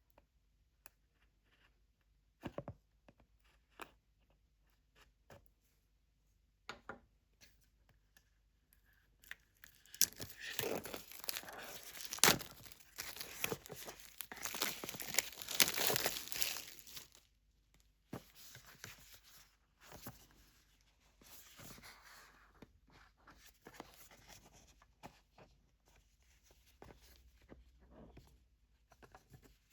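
Packaging being torn open and crinkled by hand. A few scattered clicks and taps come first. From about ten seconds in there is a long, dense stretch of tearing and crinkling lasting about seven seconds, then lighter intermittent rustling.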